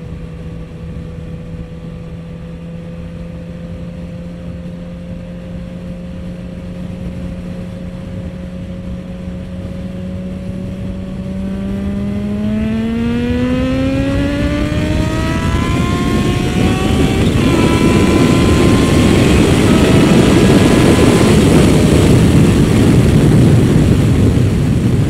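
Kawasaki H2 SX SE's supercharged inline-four cruising steadily, then opened up hard about halfway through: the engine note climbs quickly, drops once at an upshift, and climbs again. As the speed builds, the rush of wind grows loud enough to bury the engine.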